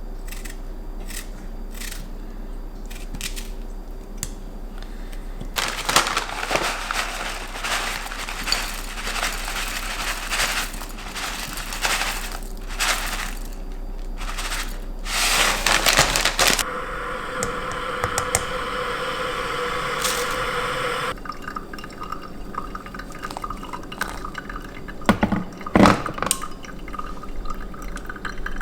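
Kitchen work sounds: liquid pouring and dripping, with glass and dishes clinking and knocking. A steady hum runs for about four seconds past the middle.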